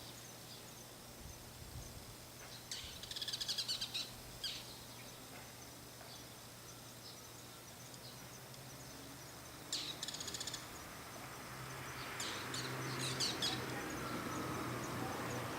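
Bull-headed shrike giving its harsh chattering call, rapid repeated notes in three bouts: about three seconds in, about ten seconds in, and again around twelve to thirteen seconds. A low steady hum lies underneath, and a rumble builds up near the end.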